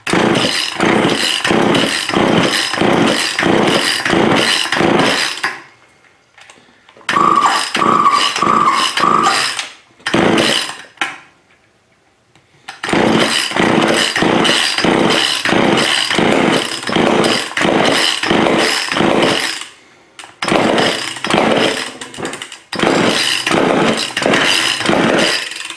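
Old Craftsman two-stroke chainsaw being cranked on its pull-cord starter in several runs of rapid pulls, each with a sharp stroke about two to three times a second, with short pauses between runs. The freshly primed engine is trying to catch but does not keep running.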